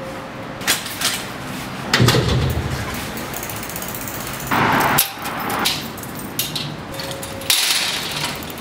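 A bicycle being wheeled along, its rear freewheel ticking, among several knocks and clunks.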